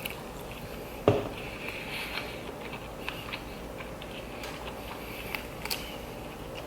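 Close-miked eating sounds: a sharp click about a second in, then soft chewing with small crackles and ticks.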